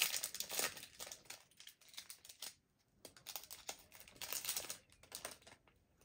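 Foil wrapper of a Pokémon TCG Fusion Strike booster pack crinkling and crackling as it is opened and the cards are drawn out, in short bursts with a brief pause about halfway.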